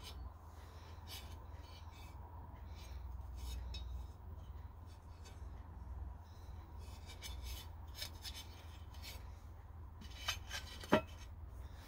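Small metal parts and a thin sheet-metal tray being handled on a paper towel: light rustles and clicks, with one sharper knock near the end as the tray is set down.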